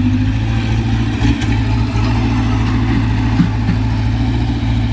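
Sumitomo excavator's diesel engine running steadily, with two brief knocks, a little over a second in and again about three and a half seconds in.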